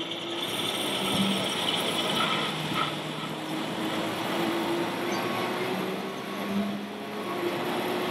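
Steady background noise of a crowded exhibition hall, mixed with a faint low engine-like drone that drifts slightly in pitch from radio-controlled model trucks driving on the layout.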